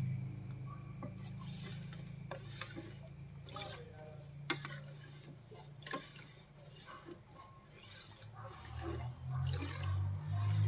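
Long steel spatula stirring thick halbai batter in a steel kadai: soft sloshing of the batter, with a few sharp clinks of the spatula against the pan.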